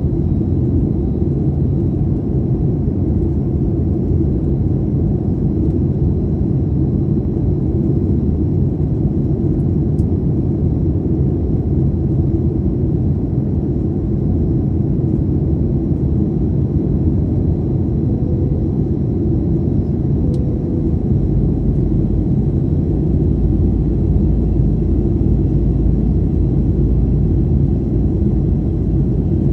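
Steady low rumble inside a Boeing 737 passenger cabin in flight, from the engines and the airflow over the fuselage. The deepest part of the rumble grows stronger about three-quarters of the way through.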